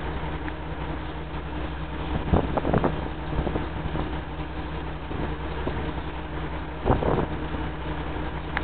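A steady low mechanical hum, like a motor running, with two brief louder noises about two and a half and seven seconds in.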